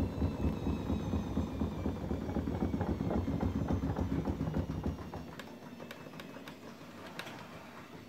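Grundig front-loading washing machine spinning a load of towels, set to 1200 rpm: a low drum rumble with a faint motor whine that slowly falls in pitch as the drum slows. The rumble fades about five seconds in, leaving a few faint clicks.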